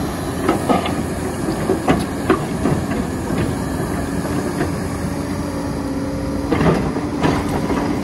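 Hyundai 330LC-9A tracked excavator running steadily under load, with a screener bucket working through brick and concrete rubble. Scattered clattering knocks come as the bucket digs in, in a cluster in the first three seconds and again near the end.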